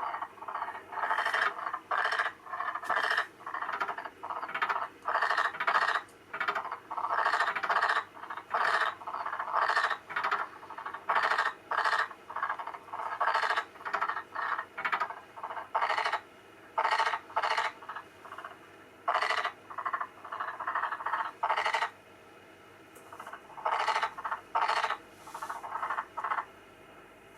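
Black-spotted pond frogs croaking: runs of short, rapid pulsed calls one after another, with brief pauses a little past the middle. An albino black-spotted pond frog is calling along with recorded calls of its own species played from a video.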